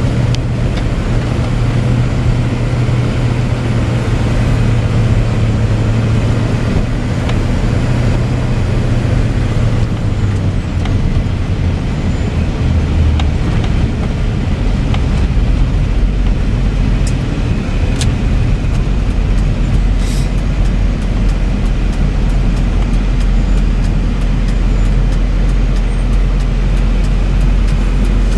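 Chevy C5500 truck's 6.6 L Duramax diesel running under way on the road, heard from the cab with a steady low drone. About ten to thirteen seconds in, the engine note drops to a lower pitch.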